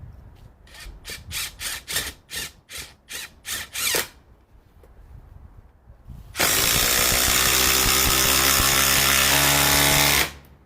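Ryobi HP brushless impact driver (PBLID02) working a 3/8 in lag screw: about ten short trigger bursts in quick succession, then one continuous run of about four seconds under load that stops suddenly.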